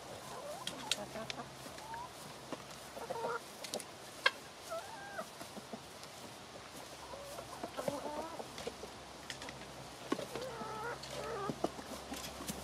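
Chickens clucking on and off while feeding, with a few sharp taps of beaks pecking at the food; the loudest tap comes about four seconds in.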